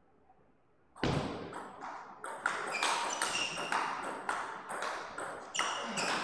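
Table tennis rally: the ball strikes paddles and table in quick sharp pings, about two to three a second, starting about a second in after a brief hush.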